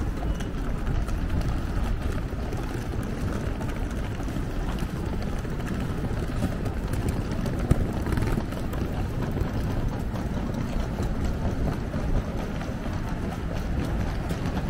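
Steady low rumble of city street noise, with faint ticks and scuffs running through it and one brief sharper knock about halfway through.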